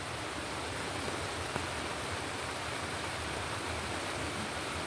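Steady, even rushing of a brown river in flood, swollen by days of rain.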